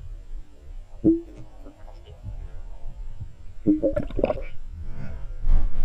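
Muffled underwater noise heard through a GoPro's waterproof housing: a low rumble of moving water, with a sharp knock about a second in and a cluster of knocks and short pitched blips around four seconds in, as a hand moves through the water near the camera.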